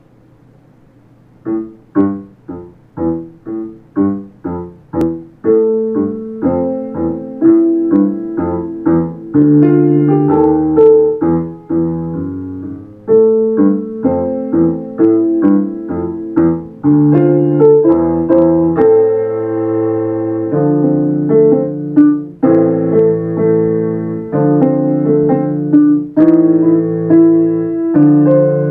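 Digital piano being played: after a moment of quiet it begins with short separate notes about two a second, then moves into a continuous melody over held lower notes.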